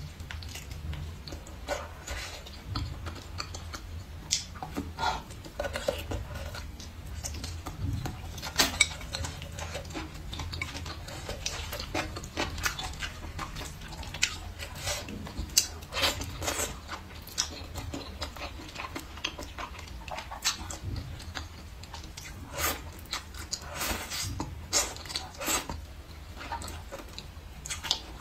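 Close-up eating sounds: slurping vermicelli noodles and chewing braised pork ribs, with many short, irregular wet smacks and clicks of the mouth, over a faint steady low hum.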